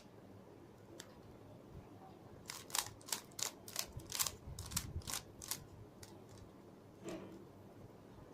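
Plastic Rubik's cube layers being twisted: a single sharp click about a second in, then a quick run of about a dozen clicks, roughly three a second, and a couple more single clicks near the end.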